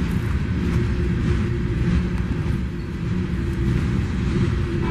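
Steady rumble of coal hopper cars rolling past on the rails, with a few faint clicks of the wheels.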